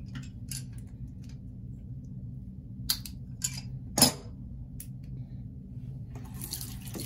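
Several sharp plastic clicks and taps as the small parts of a plastic faucet aerator are handled and pried apart, the loudest a little past halfway, over a steady low hum. Near the end the faucet is turned on and water briefly rushes into the sink.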